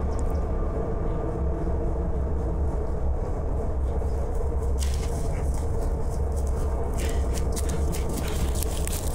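Footsteps crunching through dry pine needles and twigs on a forest floor, starting about five seconds in and coming thicker from about seven seconds, over a steady low rumble.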